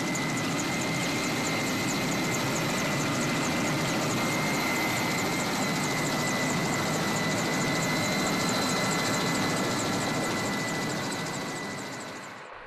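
Helicopter in flight: steady engine and rotor noise with a steady high whine, fading and cutting off near the end.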